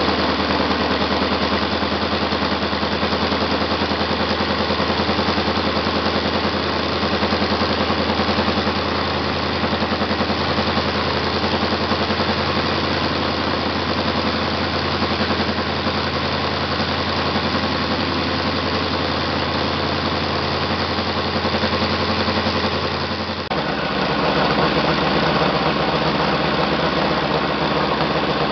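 ASP FS400 AR five-cylinder four-stroke radial model engine running steadily with its propeller spinning, just after being started by hand. About three-quarters of the way through, the sound changes abruptly to a slightly different tone.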